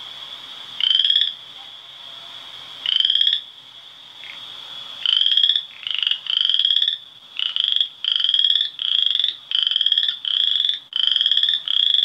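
Western chorus frog calling: short trills that each rise a little in pitch. At first they come about every two seconds, then almost back to back from about five seconds in. A steady high-pitched tone runs underneath.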